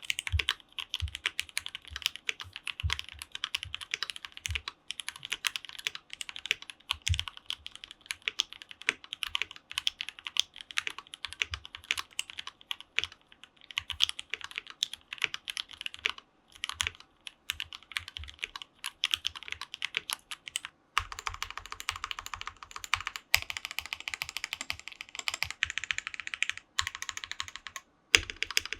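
Typing sound test on a KBDFans KBD67 Lite R2 mechanical keyboard with a polycarbonate case and plate, hot-swap linear switches, lubed KBDFans screw-in stabilizers and Cherry-profile PBT keycaps: a steady run of clacky keystrokes with a deeper thock, growing faster and denser for several seconds near the end.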